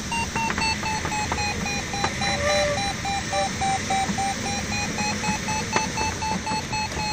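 Glider's audio variometer beeping rapidly, about five beeps a second, its pitch dipping a little and then rising again; beeping like this signals the glider is climbing in lift. Steady airflow hiss in the cockpit underneath.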